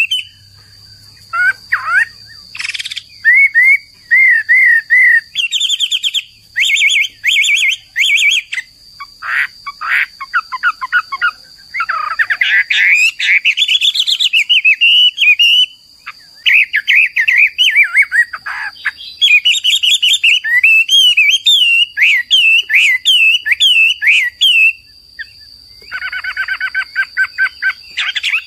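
Hwamei (Chinese melodious laughingthrush) singing a long, varied song of loud whistled phrases, slurred warbles and rapid trills, broken by short pauses. A steady high tone runs underneath.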